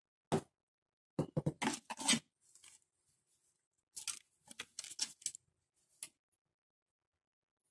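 A scattering of small dry clicks and taps: one single click, then a quick cluster of them, a pause, and a second cluster, with silence between.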